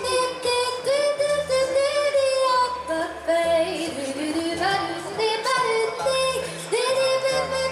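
Music: a song with a sung vocal melody of held, sliding notes over a bass line.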